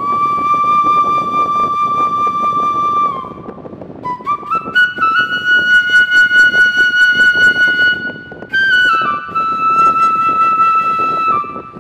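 Background music: a slow flute melody of long held notes that slide from one pitch to the next.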